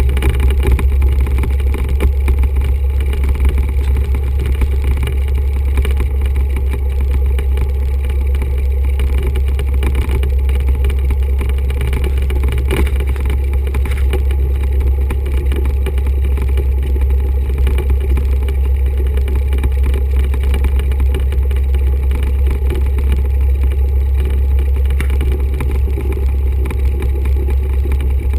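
1974 Cessna 172's four-cylinder Lycoming O-320 piston engine idling on the ground, a steady low drone heard from inside the cockpit.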